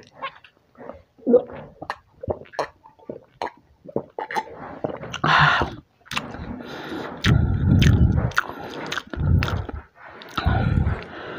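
Close-miked swallowing clicks as cola is gulped from a glass mug, and a short breathy burst about five seconds in. From about seven seconds in come loud crackling and crunching as a piece of crispy fried chicken is handled and torn up at the microphone.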